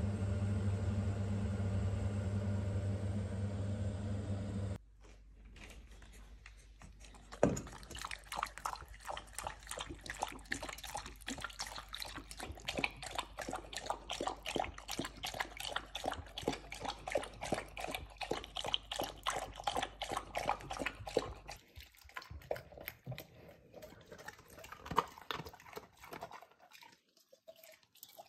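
A steady low hum for the first few seconds. Then a Great Pyrenees laps soup from a stainless steel bowl: quick wet laps, several a second, for about twenty seconds, thinning out near the end.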